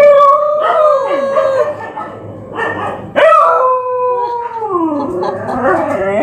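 Dog howling in long drawn-out notes, twice; the second howl holds and then slides down in pitch.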